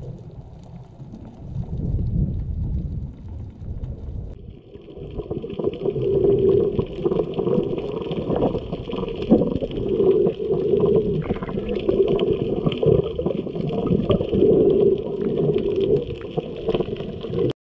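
Muffled water sloshing and gurgling picked up by a camera in a waterproof housing while snorkeling. It starts as a low rumble, then turns louder and pulsing about four seconds in, and cuts off abruptly at the end.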